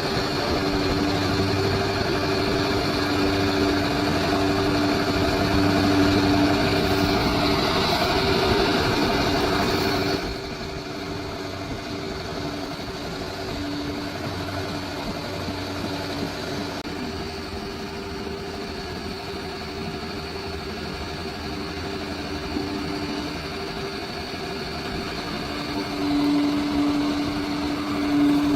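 Bulldozer's diesel engine running steadily with a constant hum. It drops suddenly to a quieter level about ten seconds in and picks up again near the end.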